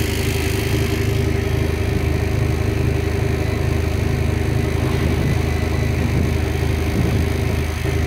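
Boat's electric motor running steadily under way on its FET controller: a constant hum with a low rumble beneath it and no change in pitch.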